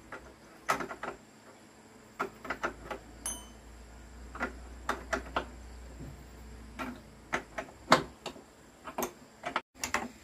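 Irregular metallic clicks and knocks of tools and parts being handled inside a wooden machine frame: a dozen or more sharp taps at uneven intervals, the loudest about eight seconds in.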